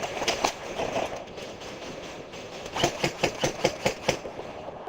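Airsoft rifle firing a quick string of about eight sharp shots, roughly six a second, starting about three seconds in, over a noisy background with scattered clicks.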